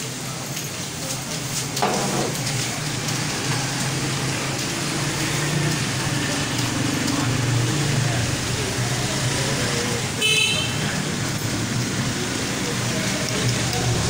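Street traffic: a vehicle engine runs steadily, with a short horn toot about ten seconds in. Faint computer-keyboard key clicks sound beneath it as students type.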